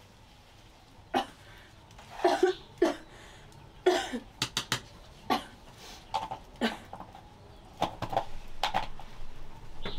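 A person coughing: a string of short, separate coughs, some coming in quick clusters.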